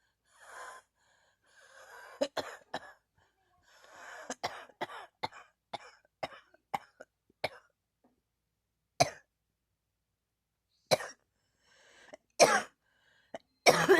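A person coughing in fits: an intake of breath, then a rapid run of about a dozen short coughs, followed by single coughs a second or two apart.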